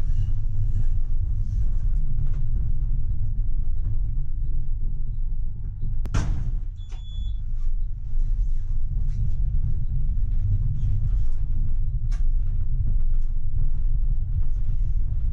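Tram running, heard from the driver's cab as a steady low rumble, with a sharp knock about six seconds in and a short high-pitched tone just after it.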